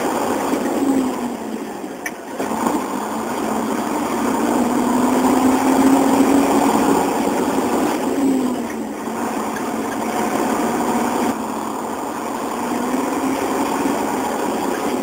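Truck engine running under way, its note climbing slowly and then dropping back three times, as at upshifts through the gears.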